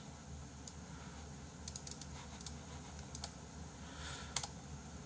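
Typing on a computer keyboard: light keystroke clicks in short scattered clusters with pauses between.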